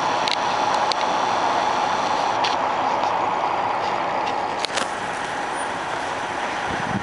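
Tour coach engine running as the bus moves past close by, a steady hum with road traffic; it eases off slightly about two-thirds of the way through.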